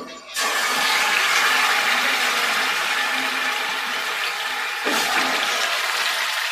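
Marinated mutton pieces sizzling in hot oil in a non-stick pan as they are tipped in: a steady, loud hiss that starts suddenly about half a second in.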